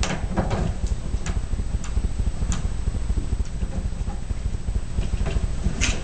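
Scattered light clicks and taps of rigid acrylic cage parts being handled, as the cage's top is fitted onto the corner posts, over a steady low rumble.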